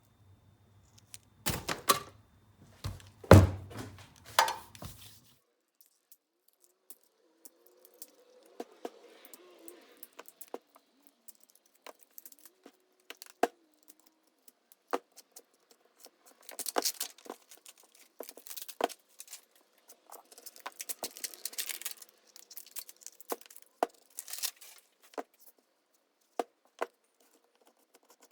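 Hands taking apart a 48-volt e-bike lithium-ion battery pack: a few heavy knocks and clatter over the first five seconds, then scattered clicks, scraping and rustling as the case and its parts are handled.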